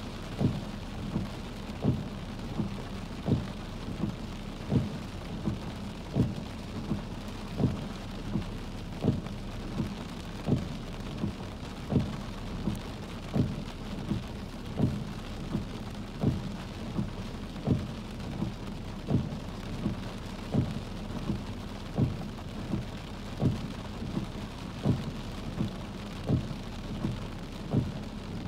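Heavy rain pattering on a car, with the windshield wipers knocking softly at each end of their sweep, about three knocks every two seconds.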